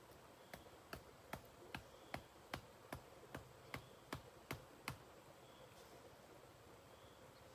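A tool striking bamboo: about a dozen sharp knocks in a quick, even run, roughly two or three a second, stopping about five seconds in.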